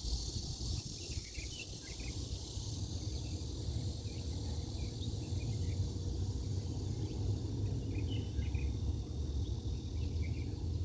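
Outdoor ambience: a steady low rumble with a high hiss, and many short scattered bird chirps.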